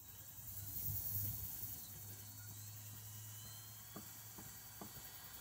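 Cordless drill driving a galvanized self-tapping roofing screw into bamboo: the motor runs as a steady low drone with a faint rising whine, breaks off briefly about two seconds in, then carries on, with a few light clicks near the end.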